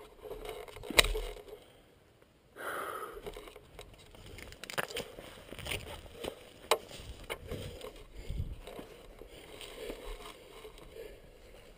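Handling noise from the camera being picked up, moved and set down: a sharp knock about a second in, then irregular scraping, clicks and knocks, with footsteps in grass near the end.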